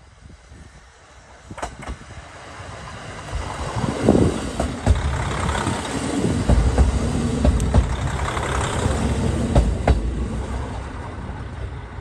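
Two-car JR Hokkaido KiHa 40 diesel-hydraulic railcar train pulling into a station and passing close by: diesel engine running and wheels rumbling on the rails, with scattered clacks. It builds up over the first few seconds, is loudest as the cars go by, and eases off near the end.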